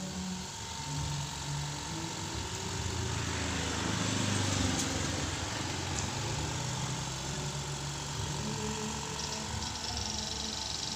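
An engine running steadily in the background, growing louder about four seconds in and easing off again. A thin high hiss joins near the end.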